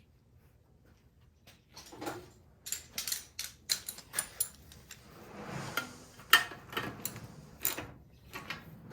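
Irregular clicks and knocks of hand tools and metal parts being handled on a snowblower engine, starting about two seconds in, with the loudest knock a little past six seconds.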